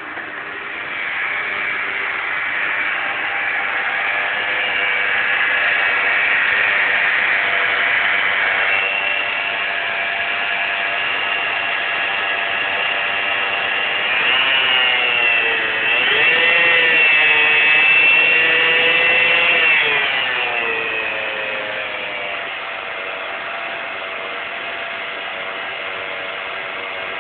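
Running car engine with a loud whining noise ('aehhhhhhh'). The whine holds steady, then wavers and shifts in pitch about halfway through before settling again. A bearing going is suspected; the alternator is new, so it is ruled out.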